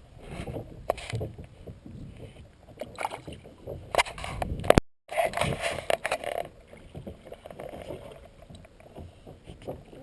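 Irregular knocks, clatter and water noise as a caught largemouth bass is handled and released back into the water. The sound cuts out completely for a moment about five seconds in.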